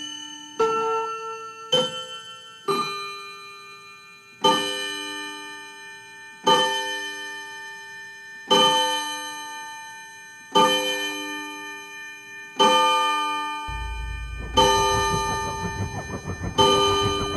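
Chiming clock ending its chime tune with a few ringing notes of different pitch, then striking the hour on one repeated bell tone about every two seconds, each stroke ringing on. About two-thirds of the way through, a low rumbling noise comes in under the strikes.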